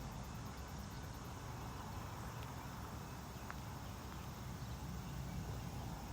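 Faint, steady outdoor background noise: a low rumble under an even hiss, with one brief faint chirp about halfway through.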